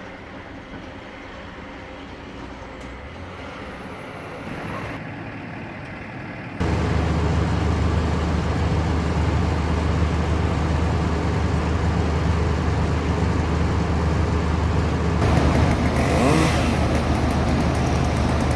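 A large engine running steadily on tree-removal machinery, quieter at first and much louder from about six and a half seconds in, with a brief rising whine near the end.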